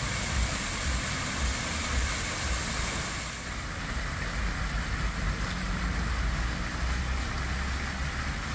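Fountain jets splashing into a stone basin: a steady hiss of falling water, with a low rumble underneath.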